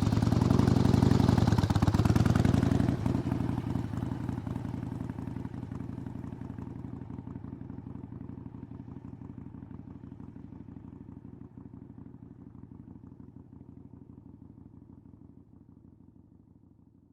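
Harley-Davidson V-twin motorcycle pulling away, its engine loud for the first three seconds with a dip and rise in pitch, then fading steadily as it rides off into the distance.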